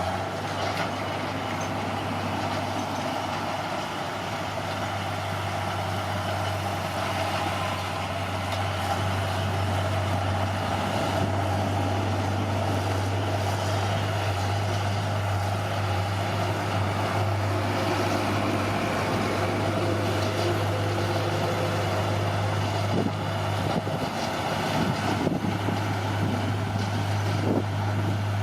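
Bulldozer's diesel engine running steadily with a constant low hum, getting slightly louder over the first several seconds.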